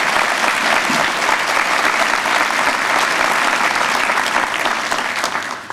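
Audience applauding with steady clapping that dies away near the end.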